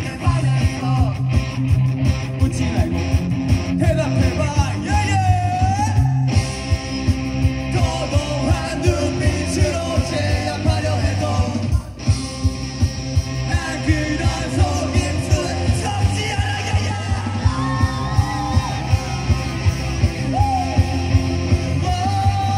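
Live punk rock band playing: shouted, yelled vocals over electric guitars, bass guitar and drums with a steady driving beat. The band drops out for a brief break about twelve seconds in.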